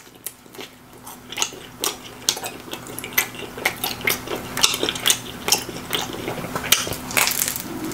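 Close-miked chewing of a slice of pizza with a well-done crust: dense, irregular crunches and wet mouth clicks.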